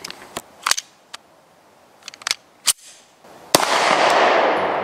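A few sharp metallic clicks as the Taurus PT909 9mm pistol is loaded, then a single loud 9mm pistol shot about three and a half seconds in, with a long echo trailing off.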